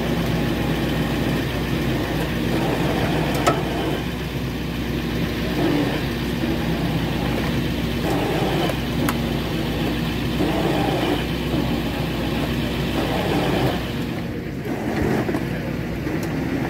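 A wrecker tow truck's engine runs steadily while its boom winch drags a sunken car up the ramp out of the river. The low engine hum drops away near the end.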